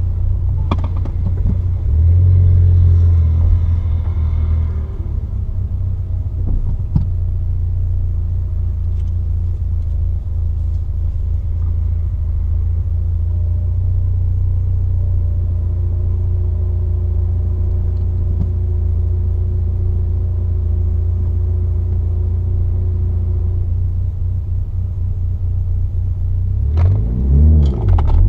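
Mitsubishi Lancer Evolution VIII's turbocharged four-cylinder engine running steadily at low revs with a deep rumble; near the end the revs rise and fall, then climb as the car pulls away.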